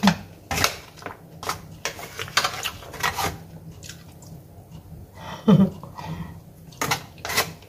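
Eating noodles from an aluminium foil tray: a plastic utensil scraping and clicking against the foil in a run of short irregular sounds, with mouth sounds of eating between bites.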